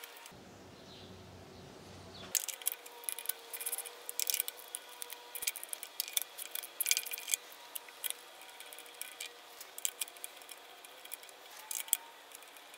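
Faint, irregular metallic clicks and light scraping of a flex-head spark plug socket and extension working loose the spark plugs, starting about two seconds in.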